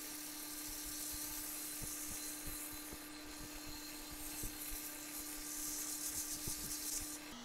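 Sandpaper, about 220 grit, held against a wooden handle spinning on a wood lathe: a steady hiss that eases and swells a little as the pressure changes, over a steady low hum.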